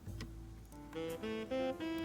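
Background music: an instrumental jazz track with melody notes over a bass line.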